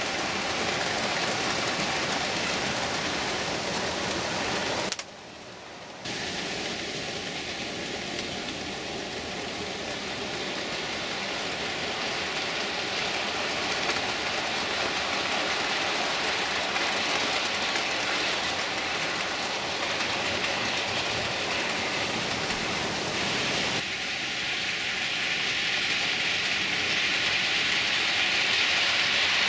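Model railway trains running on the layout: a steady rushing, whirring noise of small wheels and motors on the track, broken off for about a second some five seconds in.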